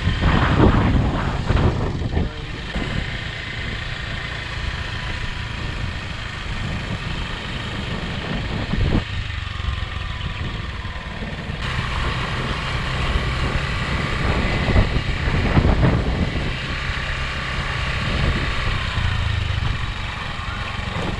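Small motorbike engine running steadily while it is ridden along, with a steady low rumble.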